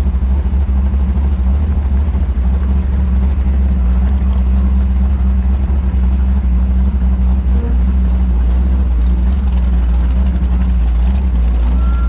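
Open-wheel race car's engine idling steadily, heard from on board as the car rolls slowly through the pits at walking pace.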